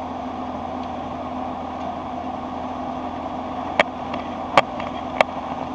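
Steady engine and road drone of a vehicle cruising on a sealed highway, with three sharp clicks or taps in the last two seconds.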